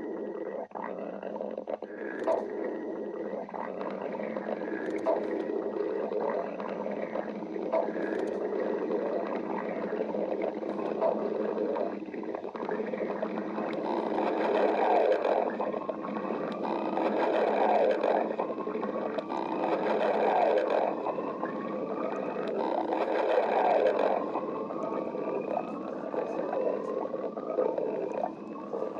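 Stomach growling: a long, continuous gurgling rumble that swells in several louder surges in the second half, with rising squeaky tones toward the end.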